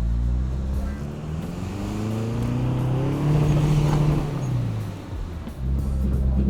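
Pickup truck engine revving hard under load while towing stuck trucks through deep snow. The revs climb for several seconds, ease off about five seconds in, then come back up.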